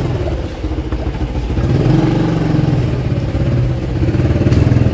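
Small motorbike engine running as the bike rides along, its note swelling about two seconds in and again near the end as the throttle opens.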